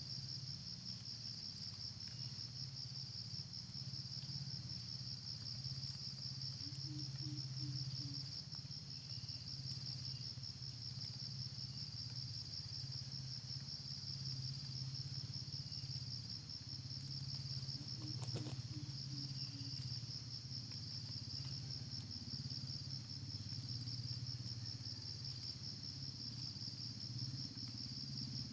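A steady, high-pitched insect chorus, a fine rapid trill that never breaks, over a steady low hum. Twice there is a brief, faint, low sound, about seven seconds in and again a little after eighteen seconds.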